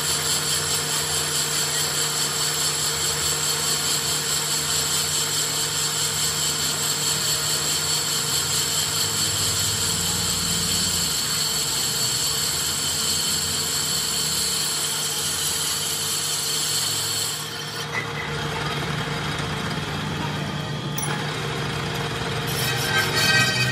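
Metal lathe turning a Fiat tractor's cast-iron brake drum while the cutting tool resurfaces it: a steady high machining whine over the lathe's hum. The whine stops about three-quarters of the way through and the lathe keeps running, with some rattling near the end.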